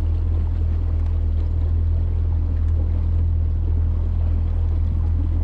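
Boat's outboard motor running at a steady speed on the water, a deep, even drone.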